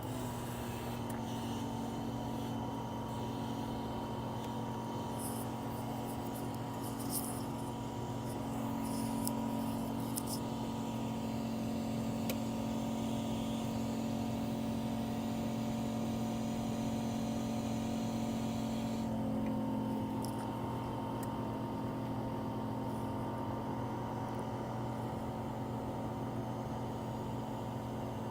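Vacuum pump of an LCD separator plate running with a steady hum, holding the iPhone LCD down while its polarizer is cut off. Faint ticks and scrapes come in the first half; about two-thirds in the hum shifts slightly and the hiss drops away.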